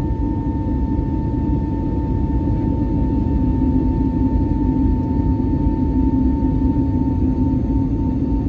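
Steady roar of an airliner's jet engines and airflow heard inside the cabin during the climb after takeoff, with a constant low hum and a thin steady whine above it.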